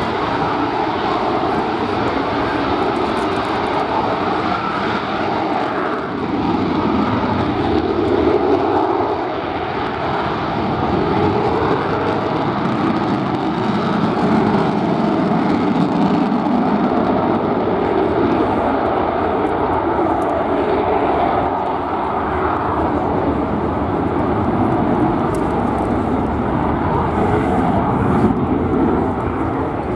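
Lockheed Martin F-35B Lightning in short take-off and vertical landing (hover) mode, its F135 engine and lift fan running with a loud, steady jet noise. The noise rises and eases a little as the jet turns in the hover and moves off.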